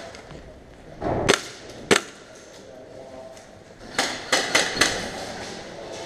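Airsoft gunfire: a sharp crack about a second in and another about two seconds in, then a quick run of four cracks between four and five seconds in.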